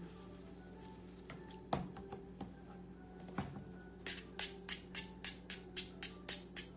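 A cooking utensil scraping flour into a pan in quick rhythmic strokes, about four a second, starting about four seconds in, with a few single clicks before; a grating sound. A steady low hum runs underneath.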